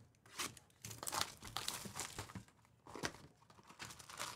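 Packaging crinkling and rustling in irregular short bursts as a trading-card hobby box is opened and its foil packs handled.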